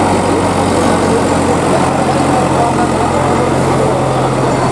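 An engine running steadily, a low even hum under a busy, noisy background.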